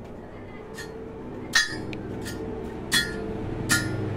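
A hammer striking metal in a steady rhythm: five ringing clinks, about one every three-quarters of a second, the second the loudest.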